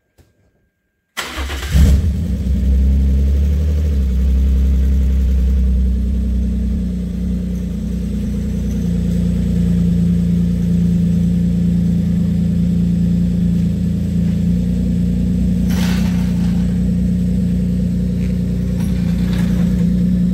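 BMW E36 328i's 2.8-litre straight-six engine starting about a second in, then idling steadily. There is one short clunk about three-quarters of the way through.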